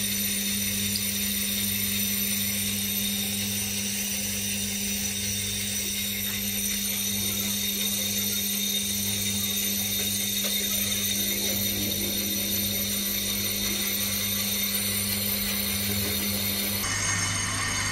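Brake lathe running steadily, turning a brake disc on its arbor for resurfacing: an even mechanical hum with a slow low pulsing, shifting slightly in tone near the end.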